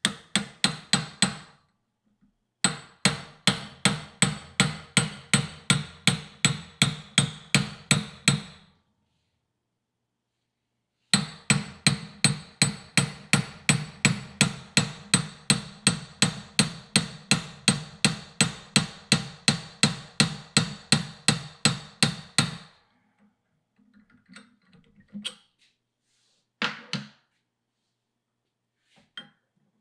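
Hammer blows on steel, about three a second with a metallic ring, driving a new kingpin bushing into an early Ford spindle. They come in runs: a brief one at the start, one of about six seconds, then after a pause one of about eleven seconds, with a few lighter knocks near the end.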